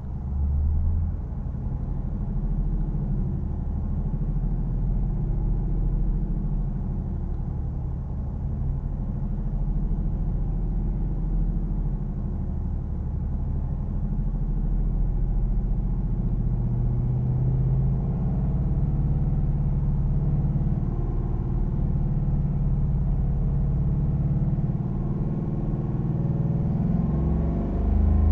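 A 2019 Ford Mustang GT's 5.0-litre V8, stationary in Park, revved in steps and held at each one, climbing toward about 3,000 rpm. This is a step-rev data-logging test of its E85 tune. The engine note falls back near the end as the throttle is released.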